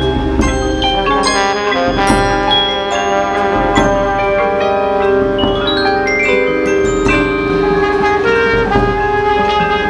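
Marching band show music: the front ensemble's mallet percussion, marimbas and glockenspiel, plays quick runs of struck, ringing notes over held brass notes.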